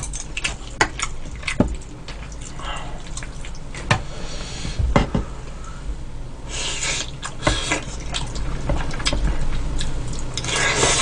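Close-up eating of seaweed soup: wet chewing and slurping, with scattered sharp clicks of the spoon and chopsticks on the bowl. Louder slurps come about four seconds in, near seven seconds, and again near the end.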